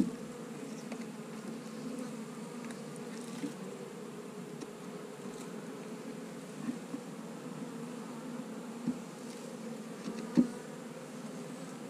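Honeybee colony buzzing steadily around the open hive. A few short wooden knocks from the frames and hive tool being worked break in, the sharpest a little before the end.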